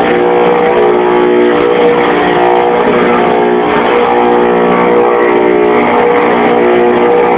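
CNC router spindle engraving a black marble slab: a loud, steady whine of the spindle motor over the noise of the bit cutting the stone.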